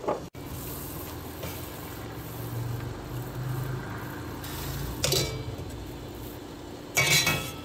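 Water boiling in a stainless steel pot, a steady bubbling hiss, with a wire skimmer clinking and scraping against the pot as glutinous rice balls are scooped out, about five seconds in and again near the end.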